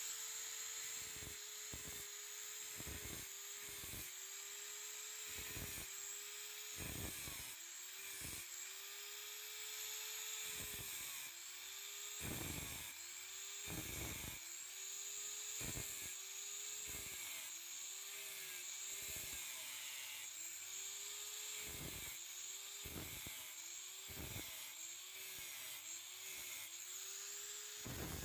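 Electric grinder grinding a steel saw blade: the motor's whine sags sharply each time it is pressed onto the steel and climbs back when eased off, many times at irregular intervals, with a hiss of grinding over it.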